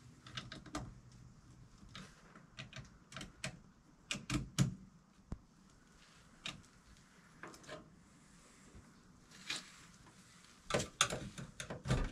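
Irregular metallic clicks and taps of a screwdriver working on the wiring inside an electrical breaker panel. There is a louder cluster of knocks about four seconds in and another near the end.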